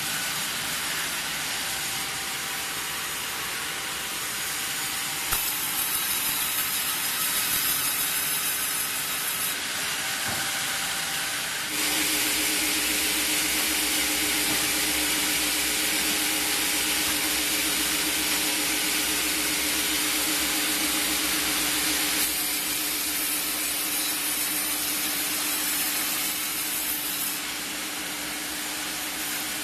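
Large vertical log band saw with a 22 kW main motor running as it saws through pine logs on its carriage: a steady machine noise with a high hiss. It grows louder about five seconds in, and again from about twelve to twenty-two seconds, when a steady hum joins it, before easing back.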